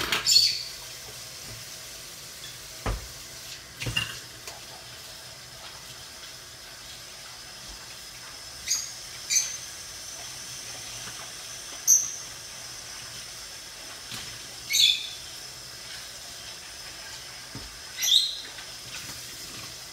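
Water running steadily from a tap, with a couple of knocks and several brief high-pitched squeaks scattered through.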